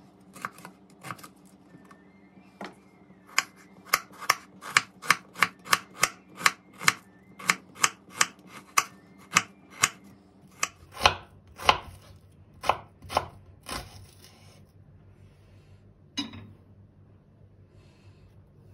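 Chef's knife slicing an onion on a bamboo cutting board: a run of sharp knocks of the blade against the board, about three a second, after a few scattered cuts. One last knock comes a few seconds after the run stops.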